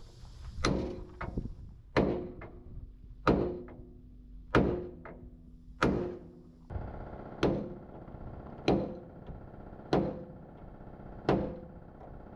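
Hammer blows on steel, evenly paced at about one every 1.3 seconds, nine in all, each leaving a short metallic ring.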